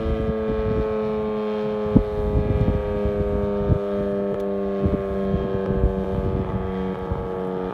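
Model 5 outdoor warning siren sounding a steady, chord-like tone whose pitch sinks slowly, with wind buffeting the microphone.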